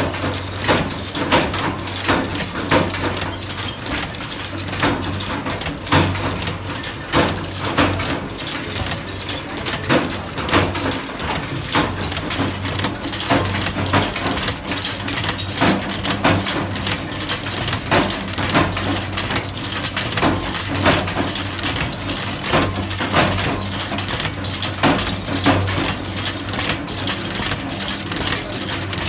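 Punch press with a rotary indexing dial feed running, working metal bulb-holder caps: a steady rhythm of metal clicks and knocks over a constant motor hum, with loose metal caps clinking against each other.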